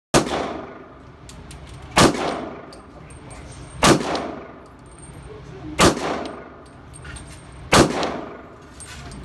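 Five single gunshots, evenly spaced about two seconds apart, each followed by a ringing echo. The shots are from a Smith & Wesson M&P 15 AR-15 rifle firing .223 rounds.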